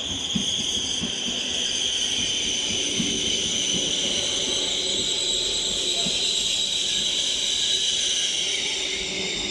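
Double-deck electric regional train pulling in and slowing to a stop, its brakes squealing in steady high-pitched tones over the low rumble of the wheels, with a few faint knocks.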